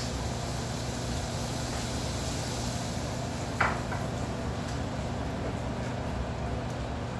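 A single sharp clink about halfway through as a mug is set down on a countertop, over a steady low hum.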